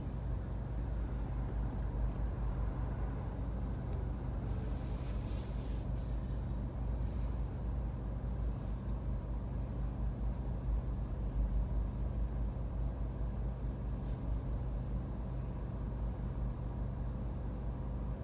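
Steady low rumble heard inside a car's cabin while it sits stopped in traffic, with a short hiss about five seconds in.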